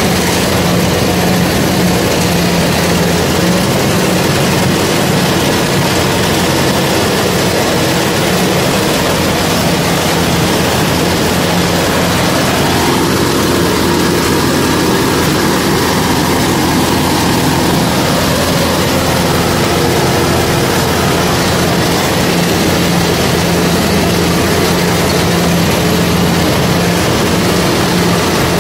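Kubota DC-105X combine harvester's diesel engine and threshing machinery running steadily under load, a loud even drone, as the machine cuts rice in a flooded, muddy paddy.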